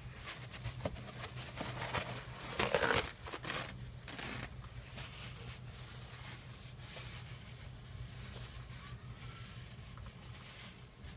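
Paper towel rustling and crinkling as hands wipe grime off a truck's rear differential housing, loudest in a burst about three seconds in, then softer rubbing.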